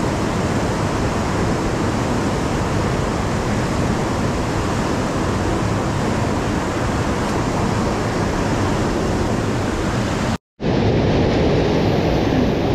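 Steady rush of a swollen, muddy mountain stream in flood: a dense, even roar of water that drops out for a moment near the end and then resumes.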